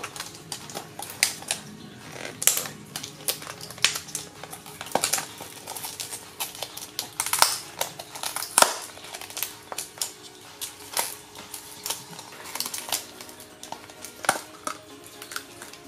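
Irregular crackling and clicking of a clear plastic deli cup and its lid as they are cut and pried open with a knife and by hand.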